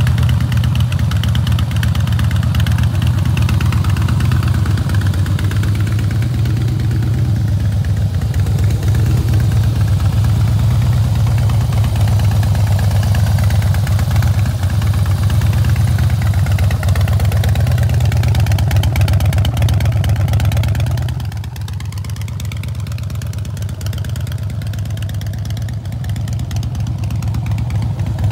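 2008 Harley-Davidson Night Train's Twin Cam 96B V-twin idling steadily, a little quieter from about twenty seconds in.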